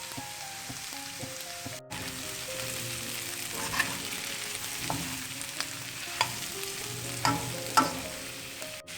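Chicken strips in a thick masala gravy sizzling in a frying pan as a spatula stirs them, with a few sharp clinks of the spatula against the pan in the second half.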